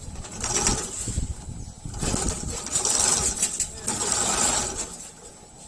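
GA-28BL-30 30-inch long-arm compound-feed walking-foot industrial sewing machine running at high speed in two bursts of rapid stitching, a short one and then a longer one of about three seconds, before it slows near the end.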